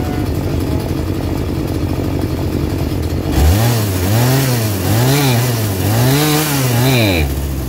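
Poulan Pro PP4218A two-stroke chainsaw engine idling, then revved up and down several times on the throttle trigger before settling back to idle near the end. The saw is running on a newly fitted carburetor that is being tuned.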